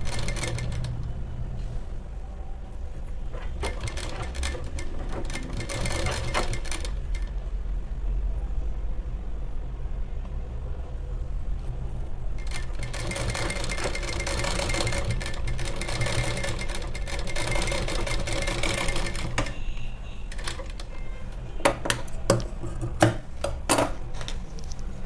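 Sewing machine stitching through layered brocade blouse fabric and thread piping, in two runs, a short one a few seconds in and a longer one of about seven seconds midway, over a steady low hum. A few sharp clicks near the end.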